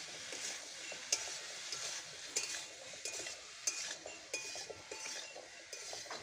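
Metal spatula scraping and clinking against a metal karahi as chunks of potato, drumstick and taro are stirred, in irregular strokes several times a second.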